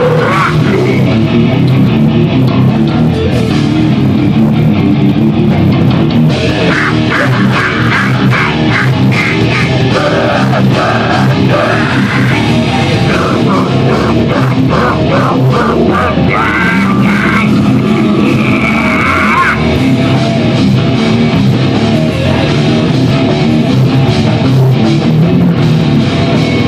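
Loud rock music played on electric guitar, with busy fast-picked guitar runs through the middle stretch.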